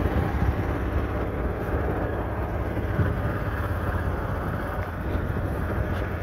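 Steady wind rumbling on the microphone over open water, a low buffeting noise without a clear pitch.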